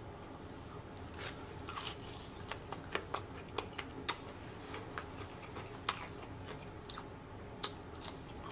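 Close-up biting and chewing of crispy fried chicken pieces, with short sharp crunches every half second or so, the loudest about 4, 6 and 7.5 seconds in.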